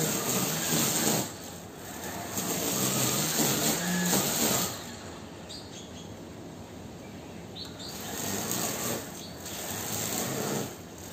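Gardena electric grass trimmer whirring as it cuts, its motor speeding up and easing off in bursts. It runs loud about two to four and a half seconds in, drops back through the middle, then speeds up again before easing off near the end.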